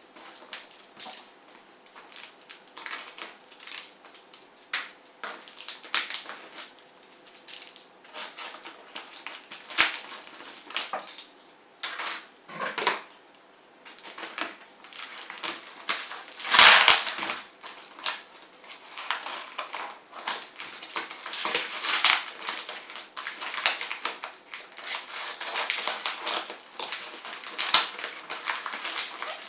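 Packaging being handled and opened: irregular crinkling, rustling and sharp crackles, with one louder crackle a little past the middle.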